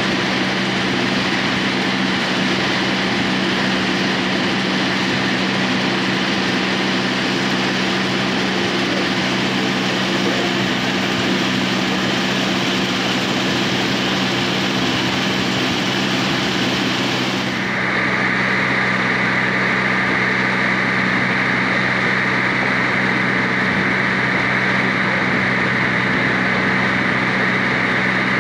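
Passenger motor launch under way: its engine runs with a steady hum under the rush of its wake. About two-thirds of the way through the sound changes abruptly, the high hiss dulling and a higher hum coming in.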